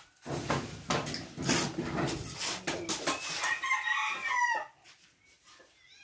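A rooster crowing once, about a second long, starting about three and a half seconds in. Before it come a few seconds of close rustling and knocks.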